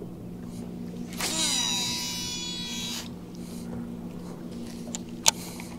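Baitcasting reel's spool whining through a long cast of a heavy swimbait, falling in pitch and then cut off abruptly about three seconds in, with a sharp click near the end. A steady low hum runs underneath.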